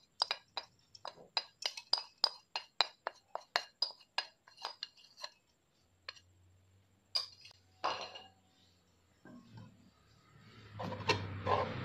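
A quick series of sharp clinks, about two or three a second, from a container tapped against the rim of a saucepan to knock out the last of the tapioca starch. The tapping stops about five seconds in, and a couple of single knocks follow. Near the end, a wooden spatula begins scraping and stirring the starch and syrup in the pan.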